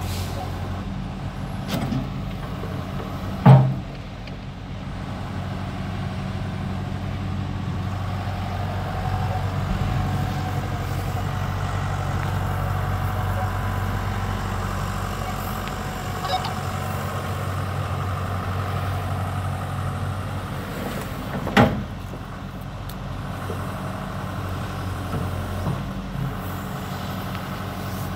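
A 2006 John Deere 120C excavator's four-cylinder diesel engine runs steadily while its hydraulics swing the upper structure and work the boom. The engine is louder through the middle of the stretch. Two loud sharp bangs come through the engine sound, one a few seconds in and one about three-quarters of the way through.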